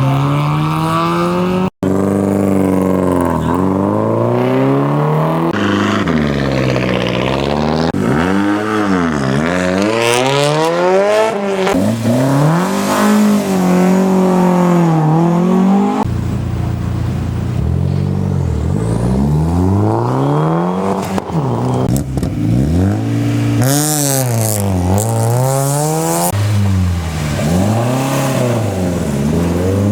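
Rally cars launching hard, one after another: engines revving high, the pitch climbing and then dropping sharply at each gear change, with sudden switches from one car to the next.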